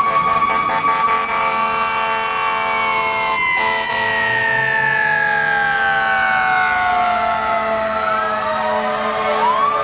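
Fire truck siren wailing: one long slow tone that sinks steadily in pitch for most of the time, then starts to rise again near the end.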